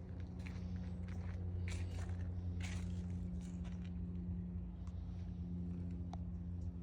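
A raccoon rummaging in a garbage bin: irregular rustling, scraping and crunching, with a brief high squeak about six seconds in, over a steady low hum.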